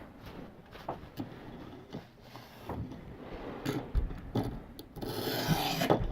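A sharpening stone on a ViperSharp guided sharpening system sliding along the edge of an S30V steel knife blade under the stone's own weight: light clicks and taps, then one long scraping stroke about five seconds in.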